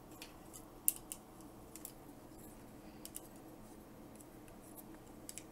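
Faint, scattered clicks and taps of hard plastic parts of a Transformers figure and its add-on armour being handled and fitted together: several sharp clicks in the first couple of seconds, a couple more about three seconds in.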